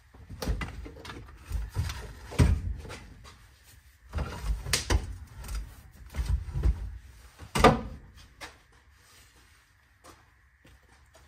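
Irregular knocks and clunks of tools and metal parts being handled while seat bolts are worked loose in a car's interior. The loudest knocks come about two and a half, five and seven and a half seconds in.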